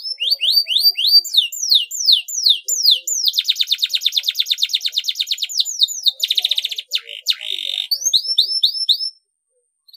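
Domestic canary singing: runs of quick falling notes, a fast rolling trill in the middle, a few harsh buzzy notes, then more falling notes before it breaks off near the end.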